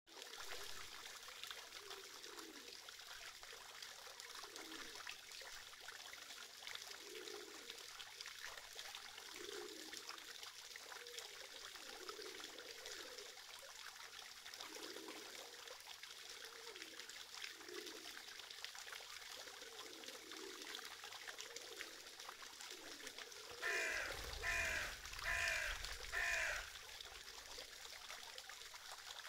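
Small fountain jet splashing steadily into its basin, with a crow cawing four times near the end.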